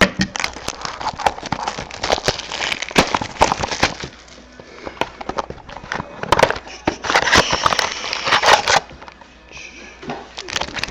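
Sealed trading-card pack packaging being torn open and crinkled by hand: runs of dense crackling, easing off for a couple of seconds about four seconds in and again near the end.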